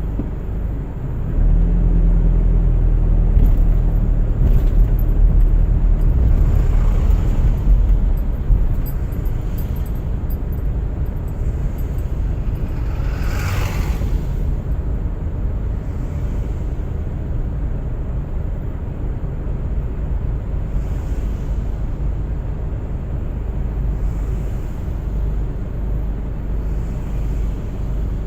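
Car driving on a winter road: steady low tyre and engine rumble, heavier for the first several seconds. About halfway through there is one brief whoosh.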